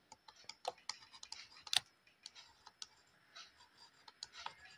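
Faint, irregular taps and light scratches of a stylus writing on a tablet screen, the loudest tap a little under two seconds in.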